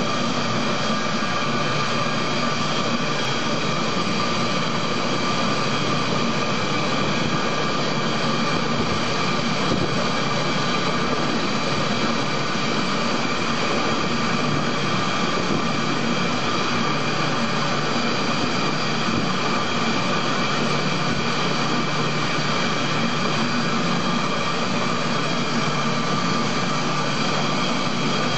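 High-shear batch mixer (emulsifier) running continuously, a steady motor-and-rotor whine with several steady high tones over a even rushing noise, not changing as the batch churns.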